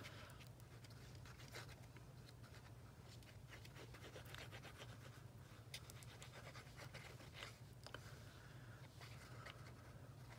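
Faint scratching of a liquid glue bottle's tip dragged over the back of cardstock as glue is squiggled on, with small ticks from the paper being handled, over a low steady hum.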